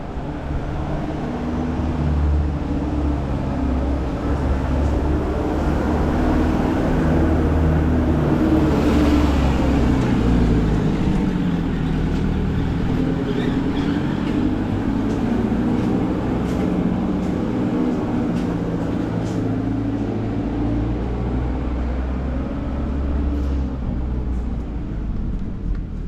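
A motor vehicle's engine running for the whole stretch, a low hum whose pitch shifts, with a swell of noise about nine seconds in.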